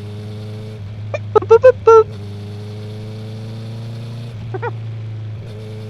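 A motorcycle horn sounds in about four short, loud beeps in quick succession about a second in. Under it, the Honda CB650R's inline-four engine runs steadily at low revs through a full Akrapovic titanium exhaust.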